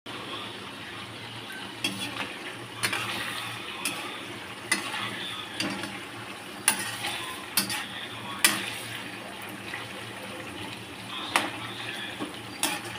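Chicken pieces frying in oil in a kadai with a steady sizzle. A metal spatula stirs and turns them, clinking and scraping against the pan roughly once a second.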